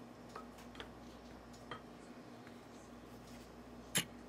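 Quiet kitchen handling as a gloved hand presses batter-coated chicken into a glass dish of dry flour mix: a few light clicks, then one sharper click near the end, over a faint steady hum.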